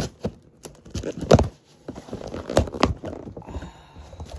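Packaging being handled while items are taken out of a package: light rustling with a string of sharp knocks and taps, the loudest about a second in.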